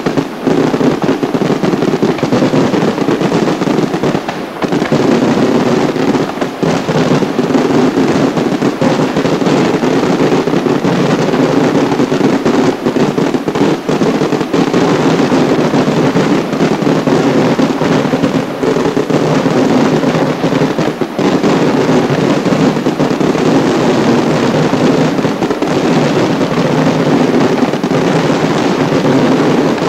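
Fireworks display going off in a dense, unbroken barrage: countless bangs and crackles merge into a continuous rumble with hardly a pause, picked up on a camcorder's microphone.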